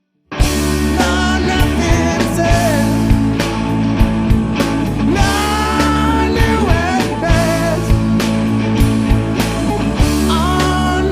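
Rock band music: after a split-second stop, the full band comes back in with drums, bass and guitars, and a lead line that slides up and down in pitch over a steady beat.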